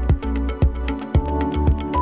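Electronic background music with a steady beat of about two strikes a second over a deep bass and held melody notes.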